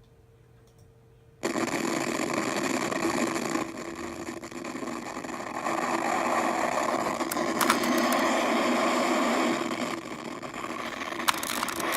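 A loud recorded track starts abruptly about a second and a half in and plays on, stepping louder and softer a few times, with a run of sharp clicks near the end.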